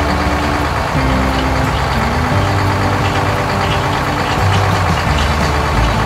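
Engine sound of a combine harvester running steadily as it cuts through wheat, with a light background tune playing underneath.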